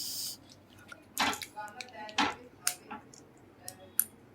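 Plastic LEGO bricks clicking and clattering as pieces are picked up and snapped together, an irregular series of sharp clicks with a few louder knocks.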